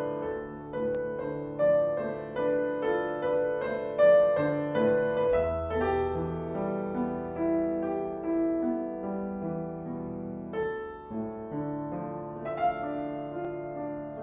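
Background piano music: notes struck at a steady pace for the first five seconds or so, then slower, longer-held notes.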